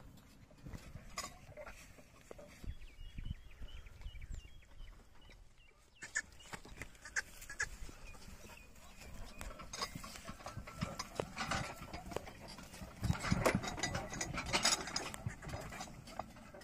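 Loaded bullock cart drawn by a pair of oxen, rattling and knocking as it rolls: irregular clicks and knocks from the cart and harness, busiest and loudest in the second half.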